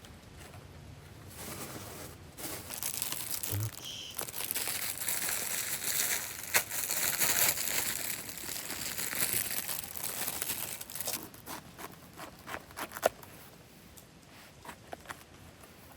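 Crinkling and rustling of packaging being handled, swelling for about ten seconds, with scattered sharp clicks.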